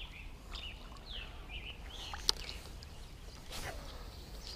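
Songbirds chirping: several short chirps that slide up and down in pitch, mostly in the first two seconds, with one sharp click a little over two seconds in.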